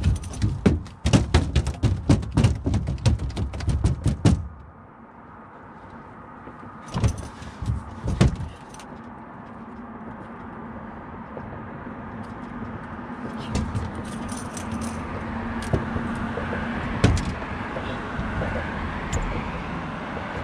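Rapid metallic rattling and clicking of gear being handled on an aluminium jon boat for about four seconds, with shorter bursts of clatter a few seconds later and again midway. A steady low hum builds through the second half.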